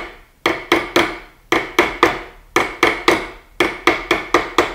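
Hammer blows on a copper bangle blank held in the bay of a Delrin plastic anticlastic stake. They come in quick runs of about four blows a second with short pauses between, each blow ringing briefly. The blows sound more solid now that the copper has formed down to the bottom of the bay.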